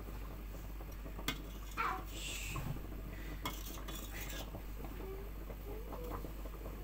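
A metal ladle clinking against a stainless steel soup pot, with a few separate clinks and scrapes scattered over a steady low hum.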